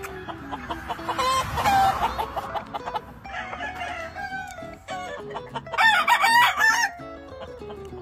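A rooster crowing several times, loudest about six seconds in, over background music.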